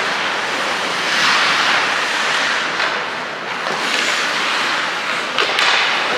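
Hockey arena crowd noise, a steady roar that swells and fades during play, with a sharp clack about five and a half seconds in.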